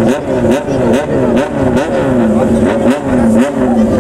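Straight-piped motorcycle engine blipped in a rhythmic 'call': quick throttle stabs, about two to three a second, each jumping up in pitch and falling back, played as a tune. It settles to a steady idle near the end.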